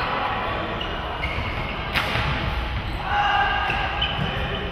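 Players' footsteps thudding and shoes squeaking on an indoor sports-hall floor, echoing in the large hall, with one sharp smack about two seconds in.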